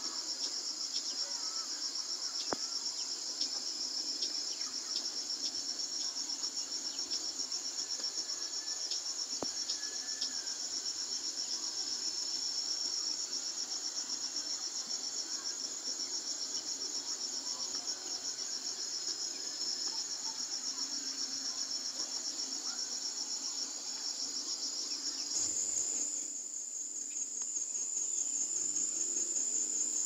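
Insects chirring in a steady, high, rapidly pulsing drone. About 25 seconds in it changes abruptly to a higher, thinner drone.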